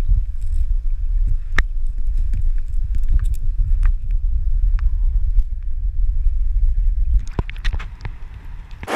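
Muffled low rumble of river current heard through a submerged action-camera housing, with scattered sharp clicks. About seven seconds in the rumble drops away as the camera comes out of the water, leaving a softer rushing hiss of the river.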